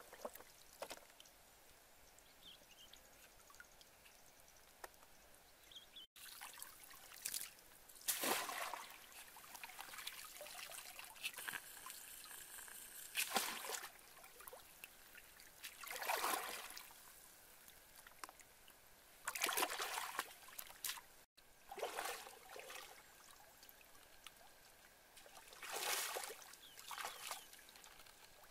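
Water sloshing and trickling out of a woven bamboo basket as it is scooped through shallow pond water and lifted to catch small shrimp and fish. The rushes come in repeated bursts every few seconds over a faint steady trickle.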